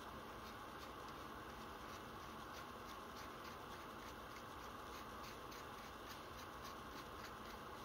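Faint light ticks and rubbing as gloved hands screw a barrel into the frame of a model revolver, over a steady low hiss.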